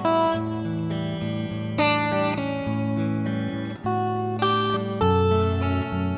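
Background music: guitar playing a plucked melody over sustained bass notes.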